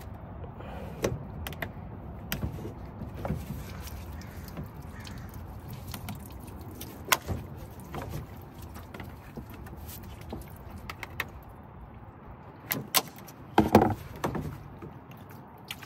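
Scattered clicks, knocks and rattles of tools and plastic parts being handled while the engine bay is stripped, over a low steady rumble; a cluster of louder knocks comes near the end.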